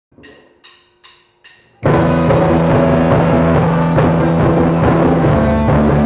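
Four evenly spaced count-in clicks, then about two seconds in a loud rock track starts with drums, bass and distorted electric guitar, a Cort M200 electric guitar playing along.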